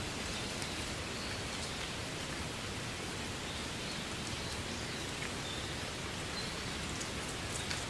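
Wind blowing through a bed of reeds: a steady, dense rustling hiss with faint scattered ticks.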